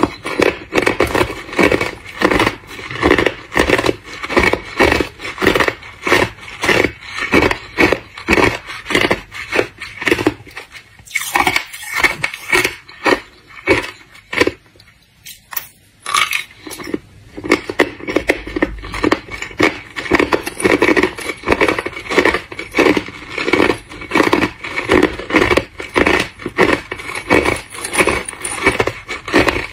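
Hard clear ice discs being bitten and chewed, a steady run of sharp crunches about two a second, with a quieter, sparser stretch of a few seconds about halfway through.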